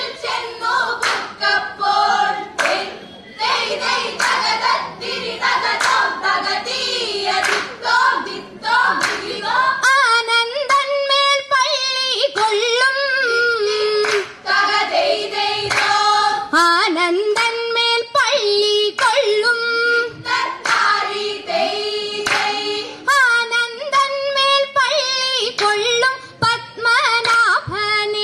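Group of girls singing Vanchippattu, the Kerala boat song, in the Aranmula style, with sharp hand claps keeping a steady beat. About ten seconds in, the sung melody comes through more clearly over the claps.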